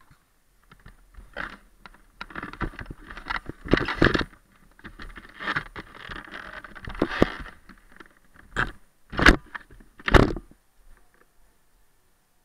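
Handling noise on a worn action camera: irregular rustling and scraping of clothing against the microphone as the wearer moves, with two loud knocks near the end.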